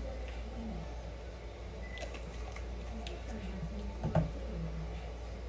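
Steady low room hum with faint low murmuring and soft handling noises, and a single sharp knock about four seconds in.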